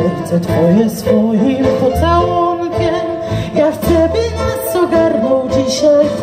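A woman singing a melody through a microphone, holding notes with a wavering vibrato, over instrumental accompaniment with low bass notes and cymbal strokes.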